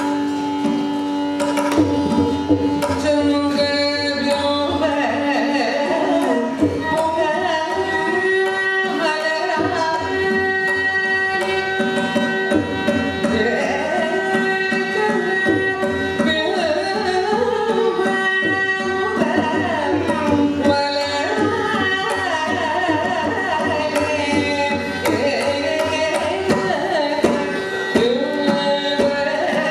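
Carnatic vocal music in raga Bhairavi: a woman sings with violin accompaniment over a steady tanpura drone. Mridangam drum strokes join about two seconds in.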